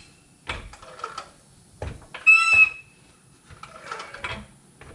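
Hydraulic floor jack being pumped under load while raising the car's rear subframe. A squeak comes with a pump stroke about two and a half seconds in, with light clicks and knocks between strokes.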